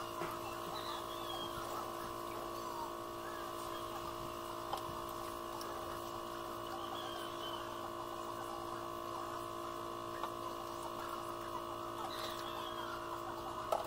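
Steady electric hum of an aquarium pump motor, holding several constant tones, with a few faint knocks.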